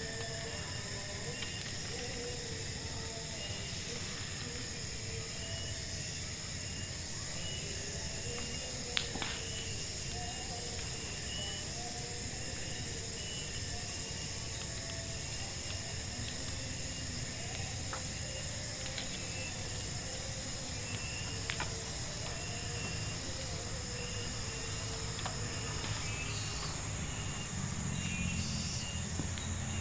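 Forest ambience: a steady high drone of insects in several continuous pitches, with short repeated calls lower down and a few faint clicks.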